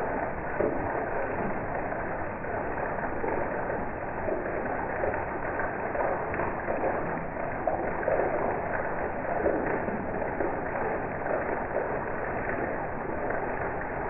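Heavy rain falling steadily, a dense rush of drops splashing on the lawn, path and garden plants. It is dull, with no high hiss, and individual splashes stand out now and then.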